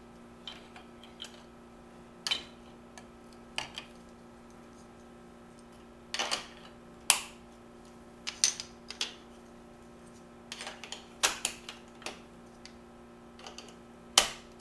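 Chunky plastic K'NEX Sesame Street building blocks clacking as they are picked up, pressed together and knocked against one another and the wooden table, in scattered sharp clicks at irregular intervals.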